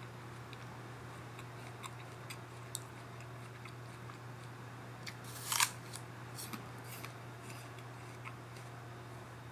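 A single crisp crunch of teeth biting into an apple about halfway through, among faint scattered clicks, over a steady low hum.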